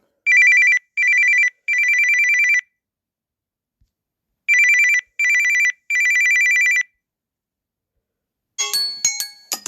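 Samsung Galaxy A23 5G ringtone: an electronic telephone-style trilling ring in two short rings and one longer ring, the pattern played twice with a pause between. Near the end comes a brief cluster of clicks and short tones.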